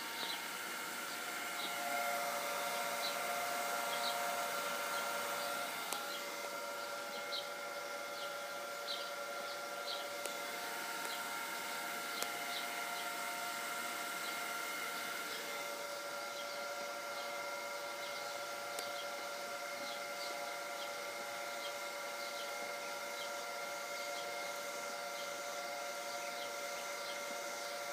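Above-ground pool filter pump running, a steady hum of several held tones, with short high chirps recurring about every second.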